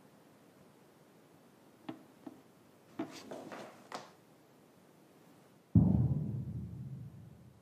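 Quiet at first, with two soft clicks and a short rustle, then a sudden deep booming hit about two thirds of the way in that dies away over about two seconds: a horror-film impact sound effect.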